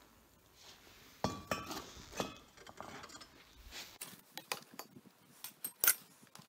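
Metal clanks and clinks as a small red-hot crucible is set down on a steel plate and handled: a loud clank with a brief ring about a second in, lighter knocks and scraping after it, and a sharp clink near the end.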